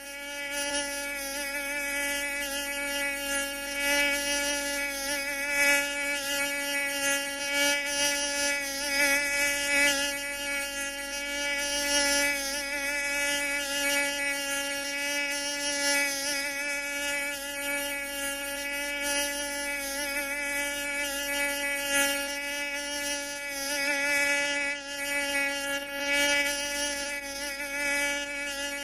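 Mosquito in flight: a steady, high-pitched whining buzz that wavers a little in loudness as it moves.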